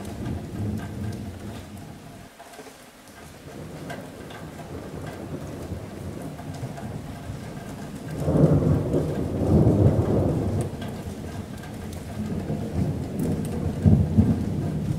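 Rolling thunder over steady rain on a metal roof. The thunder dips about two seconds in, swells to its loudest around the middle, and swells again near the end.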